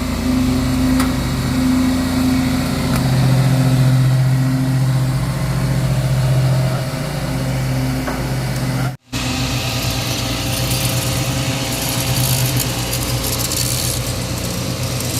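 Small engines running steadily with a wavering hum. The sound drops out for an instant about nine seconds in and comes back with more high hiss.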